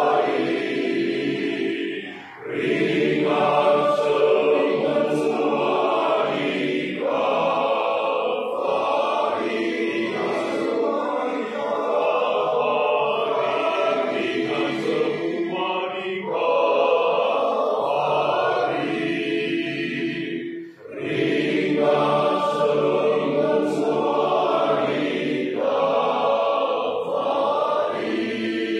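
Men's church choir singing a hymn in sustained phrases, with brief pauses for breath about two seconds in and again about twenty seconds in.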